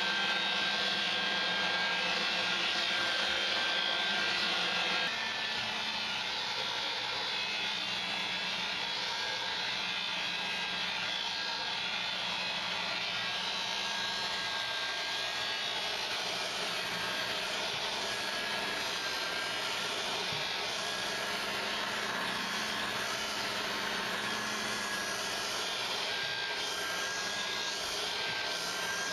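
Electric sander running steadily on wooden stairs, a continuous whirring noise with a faint hum and whine, dropping slightly in level about five seconds in.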